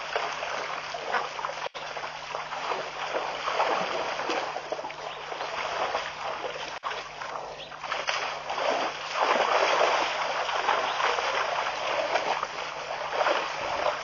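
Continuous splashing and sloshing of water as a herd of African elephants drinks at the edge of a waterhole, swelling louder in the second half.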